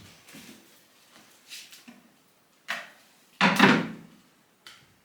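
Several short knocks and clunks of things being handled, with quiet between them; the loudest and longest, about half a second, comes about three and a half seconds in.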